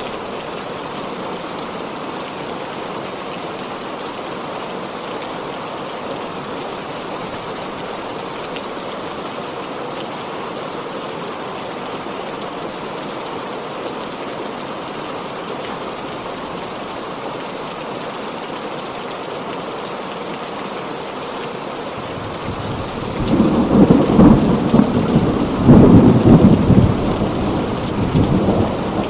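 Heavy rain falling steadily, then thunder rolls in about three quarters of the way through, a loud rumble with two peaks that fades toward the end.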